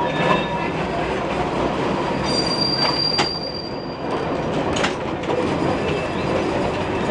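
New Orleans Public Service streetcar 832 running over the rails on a curve, heard from inside the car: a steady rumble, a high steady wheel squeal from about two to four seconds in, and a few sharp clicks from the wheels.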